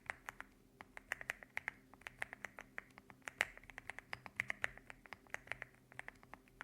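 Typing on a mechanical keyboard with stock Rambo linear switches and MDA-profile keycaps: a quick, uneven run of keystrokes, several a second, with occasional louder strokes such as the one about three and a half seconds in.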